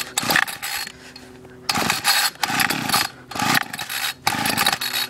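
Homelite string trimmer's two-stroke engine being pull-started: several quick pulls on the recoil starter in a row, each a short rasping whir as the engine turns over, without it catching.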